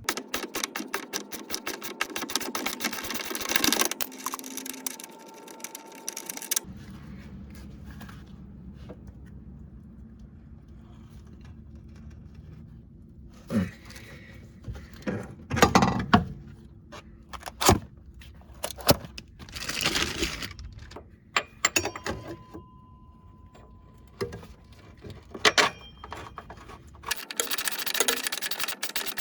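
Ratchet wrench clicking rapidly on the shock mounting bolts for a few seconds, then separate metallic clanks and knocks of tools and parts over a steady low hum. Near the end the fast clicking starts again.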